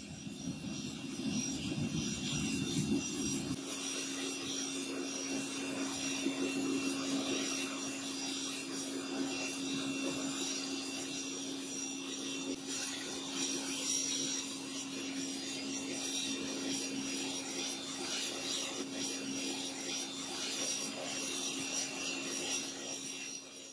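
Homemade gas-cylinder forge running: a steady rushing roar from the fire and its air feed while a cleaver blade heats in its mouth. A deeper rumble drops away about three and a half seconds in, leaving a steady hum under the rush.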